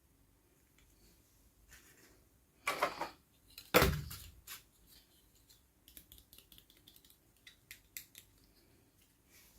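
Hands handling plastic toy packaging and miniature pieces: a brief scraping rustle, a sharp knock, then a run of light clicks and ticks.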